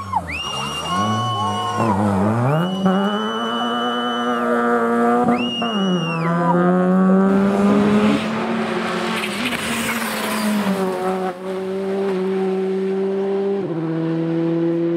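Rally car engines revving hard and dropping sharply at gear changes and lifts as the cars pass, then holding a steadier high note, with a rushing hiss of tyres on the wet road about eight to eleven seconds in.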